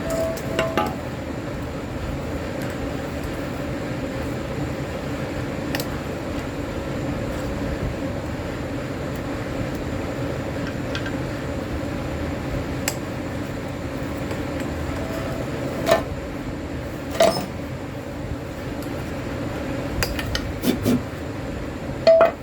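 Light metallic clinks and taps of tools and exhaust parts being handled, a few scattered strikes over a steady background hum.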